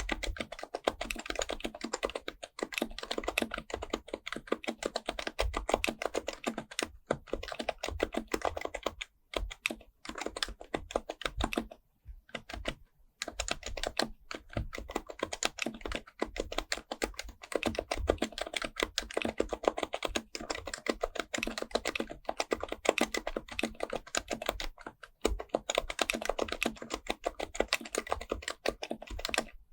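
Fast, continuous typing on an HHKB Professional Type-S keyboard with its quietened Topre electrostatic-capacitive switches, with a few brief pauses in the keystrokes, the longest about twelve seconds in.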